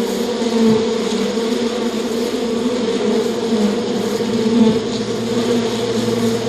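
Steady, continuous insect buzzing with a slightly wavering pitch.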